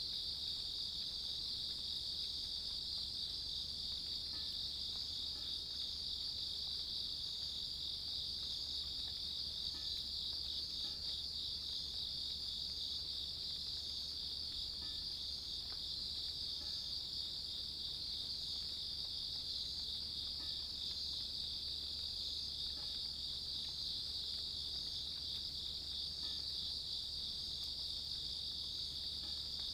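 Grass insects singing in a steady, unbroken high-pitched trill.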